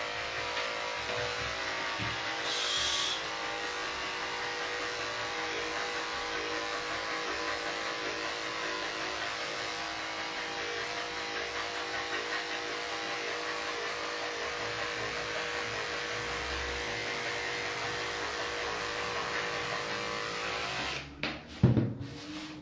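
Corded electric dog-grooming clipper running with a steady hum as it cuts through the dog's coat. It stops about a second and a half before the end, followed by a couple of knocks.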